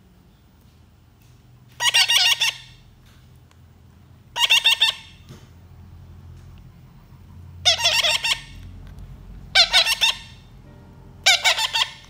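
Baby parrots giving five harsh, rapidly pulsed squawks, each about half a second long and a few seconds apart: the begging calls of chicks being hand-fed.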